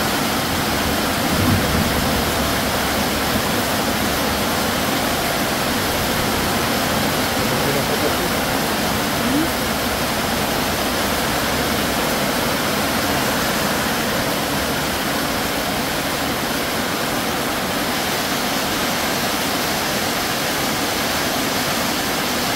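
Heavy rain pouring down steadily in a tropical storm downpour, one even, unbroken rushing noise.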